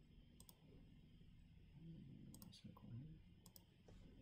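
Computer mouse clicking: three short, sharp clicks, some in quick pairs, spaced a second or so apart, over faint room tone.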